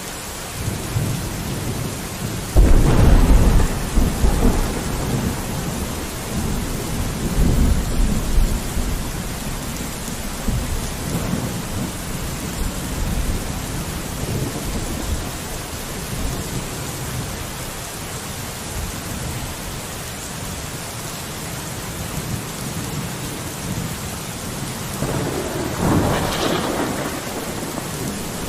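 Steady rain falling with a thunderstorm. A loud thunderclap comes about two and a half seconds in and rumbles on for several seconds, and a second, shorter rumble of thunder comes near the end.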